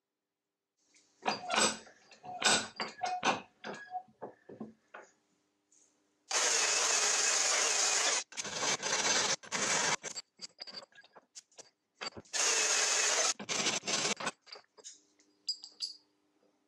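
Metal clinks and knocks as cast aluminium vise jaws are handled and set in a bench vise, then a corded electric drill runs in two steady spells of about two seconds and one second, with short starts and stops between, drilling into the aluminium jaw.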